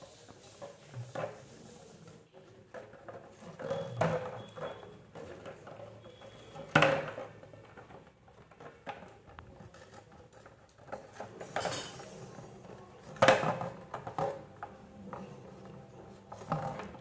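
Parakeet gnawing and pecking at the cap of a plastic water bottle: scattered small clicks and taps of beak on plastic, with two louder knocks about seven and thirteen seconds in.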